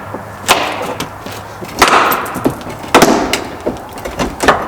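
Old wooden door frame being wrenched and knocked out of a wall opening: about four sharp bangs and cracks of wood, some followed by a short rattle of loose pieces.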